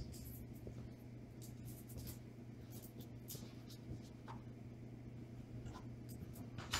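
Faint footsteps and shoe scuffs on a concrete shop floor, a few short scrapes and clicks, over a steady low hum. A sharper click comes near the end.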